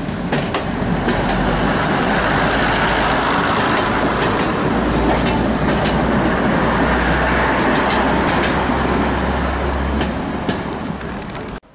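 Heritage diesel multiple unit passing close by over a level crossing. Its engines drone low and steady, loudest in the middle of the pass, with wheels clacking now and then over rail joints. The sound cuts off suddenly near the end.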